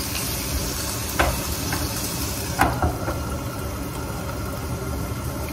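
Vegetables and peanuts sizzling in oil in a frying pan after a splash of water. The hiss is strongest at first and dies down after a second or two. There are two sharp metal clinks of pan and lid, the second about two and a half seconds in.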